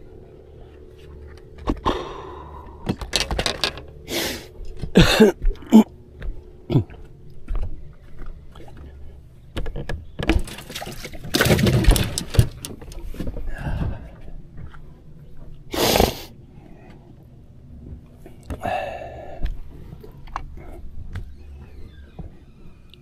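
Handling noises on a fishing boat as a crappie is unhooked and the angler moves about the deck: irregular knocks, clicks and rattles in two runs, then one loud knock about two-thirds of the way in, over a low steady hum.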